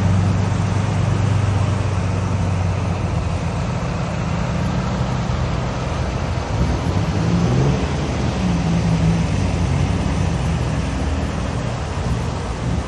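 Heavy rain pouring steadily, over a continuous low rumble.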